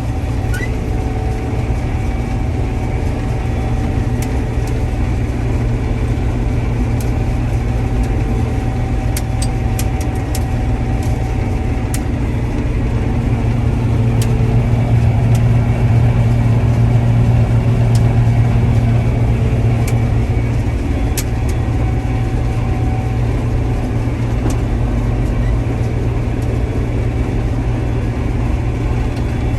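Combine harvester running steadily while harvesting soybeans: a constant low engine drone with a faint steady whine from the machinery and occasional light ticks. It grows slightly louder around the middle.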